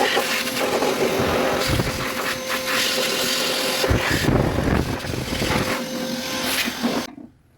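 A loud electric machine running steadily with a constant hum, cut off suddenly about seven seconds in.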